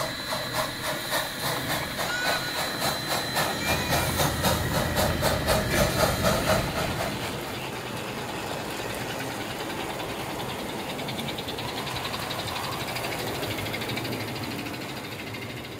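Steam locomotive chuffing, the beats quickening over the first seven seconds, then running together into a steady hiss that fades near the end.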